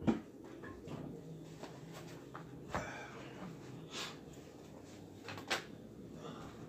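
Quiet room with a faint steady low hum, broken by four short clicks or knocks: a sharp one right at the start and softer ones about three, four and five and a half seconds in.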